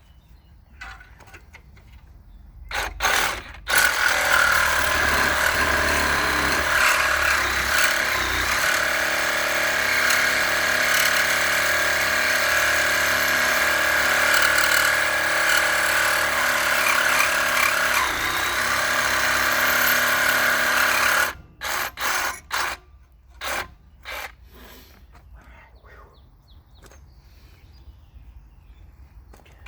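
Handheld power tool cutting through a double-sided weld on steel: a couple of short blips about three seconds in, then a long steady run with a high whine until about two-thirds of the way through, followed by several short bursts.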